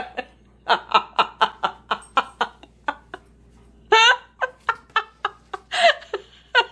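Hearty laughter in quick runs of short, high-pitched bursts, about five a second, breaking off briefly and starting again louder about four seconds in.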